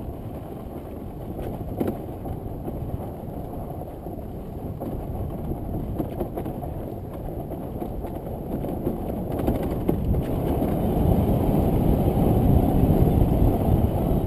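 Low, noisy rumble of a dirt bike moving along a trail, growing louder about ten seconds in.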